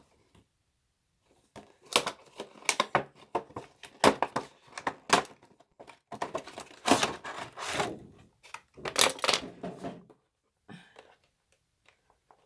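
Packaging of a makeup brush set being handled and opened: irregular crackling, rustling and clicking, from about two seconds in until about ten seconds in.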